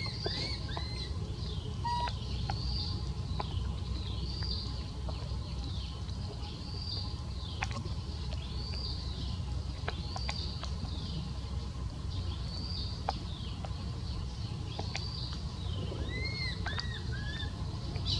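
Short, high-pitched animal calls repeating about once a second over a steady low background hum, with a few lower calls near the end.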